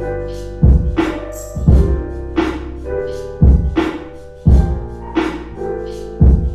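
Lo-fi hip-hop instrumental: a slow, steady kick-and-snare drum beat under sustained keyboard chords.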